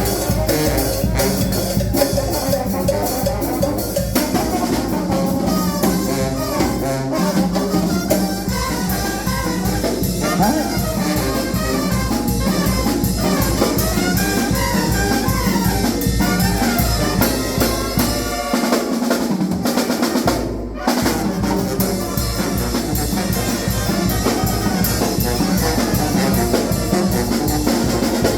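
Mexican banda music: trumpets and other brass playing over a drum kit and percussion. The low bass drops out for a couple of seconds about two-thirds of the way through, then the full band comes back in.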